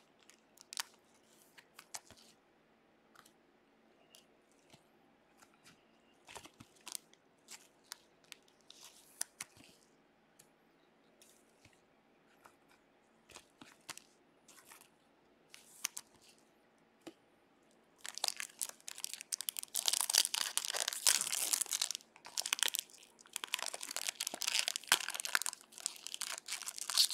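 Sparse light clicks of trading cards being handled, then, from about two-thirds of the way in, the loud crinkling and tearing of a Stadium Club baseball card pack wrapper being ripped open, with a short pause partway through.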